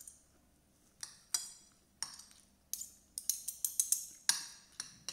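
Spoon and fork clinking and scraping against a plate while scooping rice: a few spaced clinks, then a quick run of clinks about three to four seconds in.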